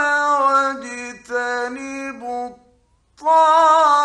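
Male Quran reciter's voice chanting in long, ornamented melodic phrases with held notes. The voice trails off about two and a half seconds in, falls silent for a moment, then comes back strongly.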